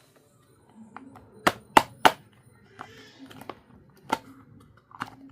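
Small toy pieces from a miniature food set being handled and set down, making sharp little clicks and taps. There is a quick run of three about one and a half to two seconds in, then single clicks.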